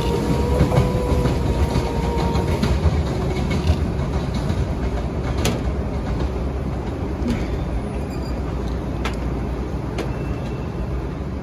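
Beijing Subway Line 1 train running away along surface track: a steady rumble of wheels on rails with a faint whine in the first couple of seconds, then a few sharp clicks, slowly fading as the train moves off.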